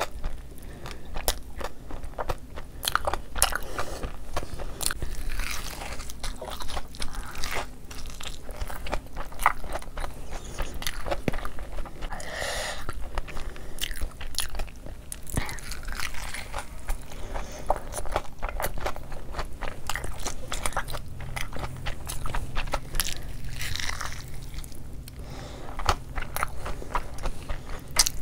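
A person biting into and chewing crunchy Cheetos-coated rice paper rolls: a steady run of crisp, irregular crunches mixed with chewing.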